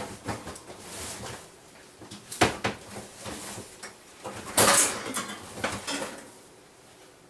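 Spice jars and packets clinking, knocking and rustling as they are rummaged through in a pull-out wire basket drawer, with a sharp knock about two and a half seconds in and the loudest rattle a little past four and a half seconds.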